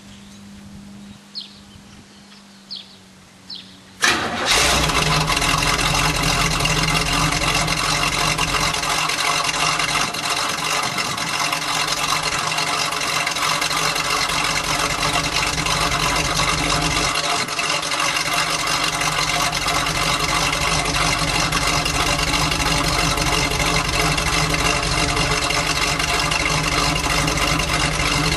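A 1969 Camaro's V8 starting about four seconds in, catching at once, then running steadily at idle.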